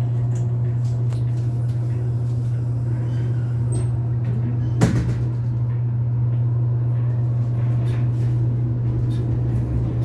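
Elevator car in motion: a loud, steady low hum, with one sharp click about five seconds in.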